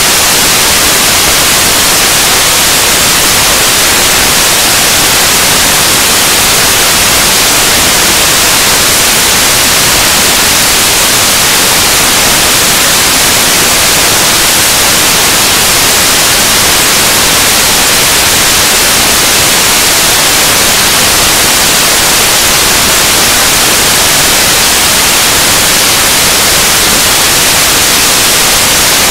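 Loud, steady static hiss like white noise, strongest in the high range, with no speech or other sound through it: a corrupted sound track in place of the talk.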